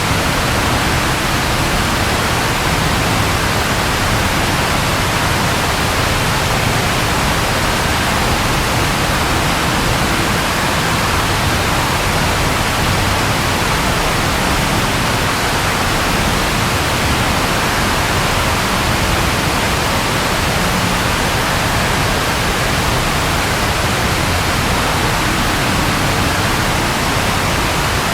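Steady rain falling, an even, unbroken hiss with no thunderclaps.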